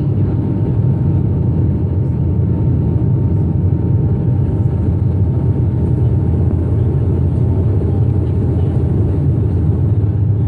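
Bombardier Dash 8 Q400's Pratt & Whitney PW150A turboprops and propellers droning steadily, heard inside the passenger cabin, with a deep, even hum and a faint steady tone.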